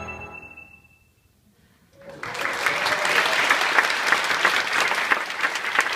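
Handbells' final chord ringing and fading away over the first second, a brief hush, then audience applause breaking out about two seconds in and carrying on steadily.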